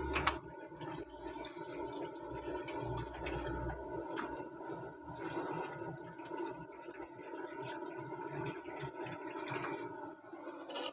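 Water poured from a jug into a shallow tray inside an egg incubator, splashing and trickling, over the steady hum of the incubator's fan. A sharp knock sounds near the start.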